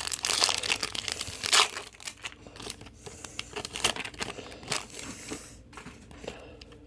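Plastic trading-card pack wrappers crinkling and rustling as packs are opened and cards handled, in quick irregular crackles that thin out near the end.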